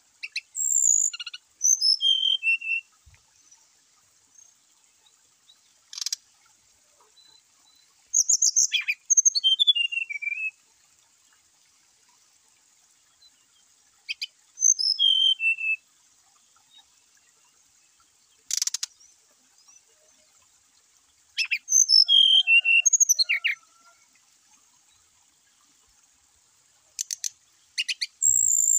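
Brown-chested jungle flycatcher singing: short phrases of high whistled notes that slide down in pitch, repeated every few seconds with pauses between, and a few sharp clicks in the gaps.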